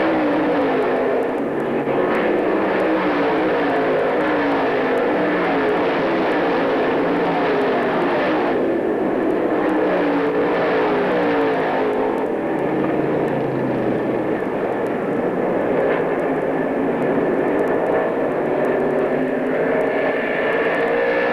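Several dirt track stock cars racing around the oval at full throttle. Their engines overlap, and each one's pitch slides up and then down as it passes and goes through the turns.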